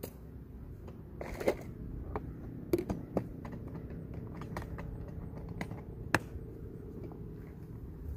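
Irregular sharp clicks and knocks, several over a few seconds, over a low steady rumble.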